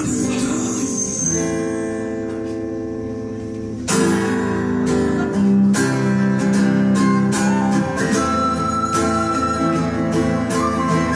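Acoustic guitars in a live band: a chord rings out and slowly fades, then a steady strummed rhythm starts about four seconds in. Near the end a recorder comes in with long held notes over the guitars.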